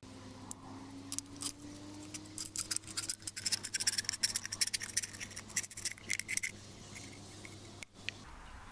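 Knife blade cutting and scraping through the thin aluminium of a beer can to remove its top: a quick run of scratchy metallic clicks and rasps, thickest in the middle and stopping near the end.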